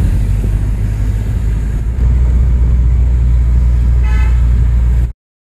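Road traffic heard from a moving vehicle: a steady low rumble that gets louder about two seconds in, with a short car-horn toot about four seconds in. The sound cuts off suddenly shortly before the end.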